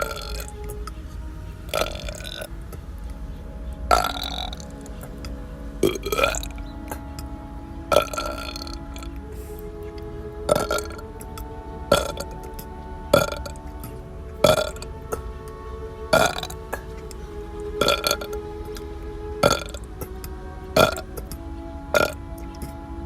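A person burping over and over, one short burp about every one and a half seconds, over background music with held notes.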